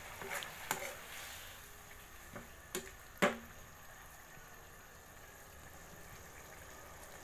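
A metal ladle stirring a simmering broth in a wok, clinking against the pan several times, loudest a little over three seconds in, over a soft steady bubbling.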